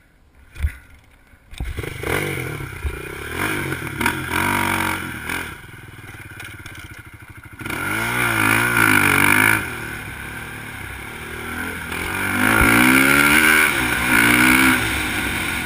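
Race quad engine revving hard under load, its pitch climbing and dropping again and again as the rider accelerates and eases off. A single sharp thump comes about half a second in, before the engine sound begins about a second and a half in.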